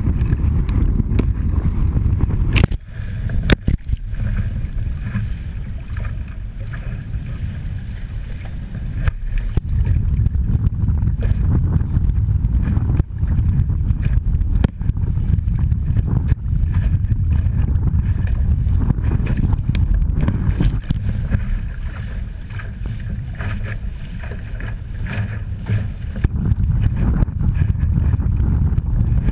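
Wind buffeting the microphone and water rushing past an OK Dinghy's hull as it sails through choppy waves, with a few sharp slaps of waves and spray hitting the boat, about three seconds in and again around thirteen to fifteen seconds in.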